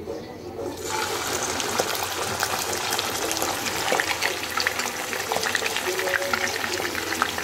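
Hot cooking oil sizzling and crackling as raw chicken pieces are laid into the pan, the sizzle starting about a second in and holding steady.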